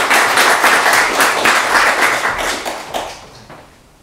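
Audience applauding, the clapping fading away about three seconds in.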